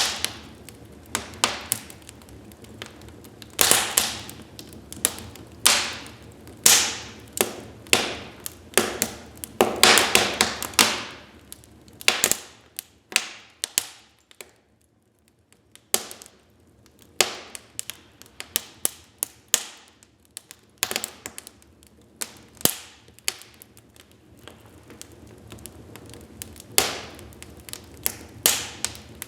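Wood fire in a fireplace crackling: irregular sharp pops and snaps, several a second, with a lull of a few seconds around the middle.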